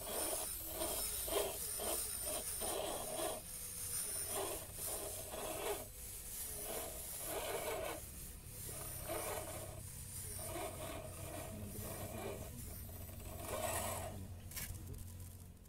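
A scale RC crawler's electric drivetrain works in short repeated bursts as it climbs a loose dirt slope, with scraping and scrabbling from its tyres and chassis on the soil.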